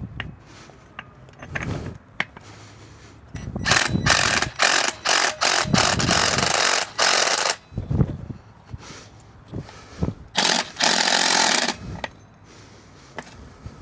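Impact wrench hammering on the 35 mm nut of a scooter's clutch and driven pulley to undo it: a longer run of about four seconds with a few short breaks, then a shorter run of about a second, with lighter knocks of tool handling between.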